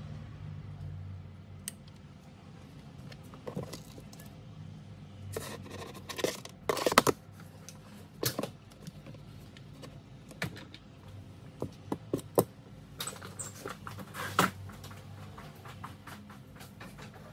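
A transformer soldering gun's low hum for about the first second and a half, then scattered clicks, clatters and scrapes as the gun, the LED strip and other small items are picked up and set down on a hard tabletop.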